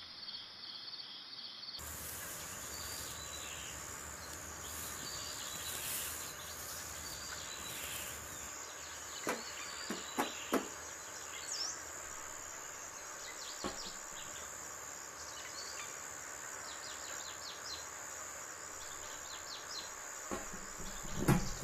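Insects chirring steadily at a high pitch, with a few soft knocks around the middle.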